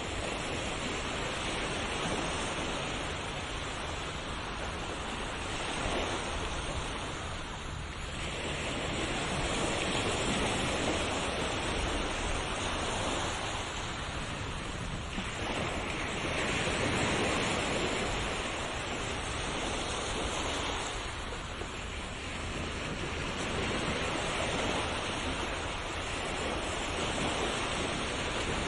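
Sea waves breaking and washing on a shore in a continuous rush of surf that swells and eases about every five to seven seconds.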